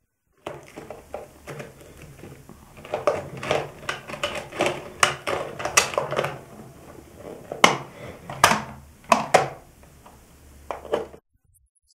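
Hard plastic clicking, clacking and knocking as the clear plastic tank of a The Trash Pack Sewer Truck toy is handled and turned by hand, with a run of sharper knocks in the middle. It starts about half a second in and cuts off abruptly near the end.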